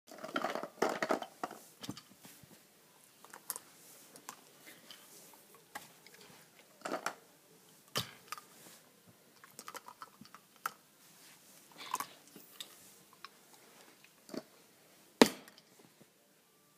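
A border collie nosing, mouthing and knocking plastic tubes around on her crate bed: scattered, irregular knocks and clatters, with a busier cluster at the start and the sharpest knock about fifteen seconds in.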